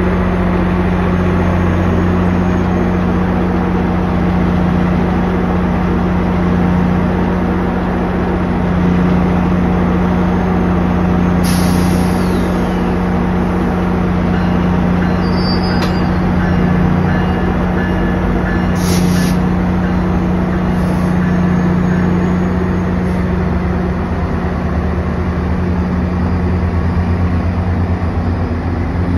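GO Transit locomotive 652, an MP40PH-3C diesel, idling steadily at a standstill with a low, even engine drone. Short bursts of air hiss come about eleven seconds in and again about nineteen seconds in.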